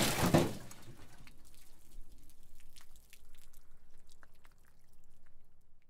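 Liquid splash sound effect that dies away within about half a second, followed by scattered small drips and wet splats, stopping just before the end.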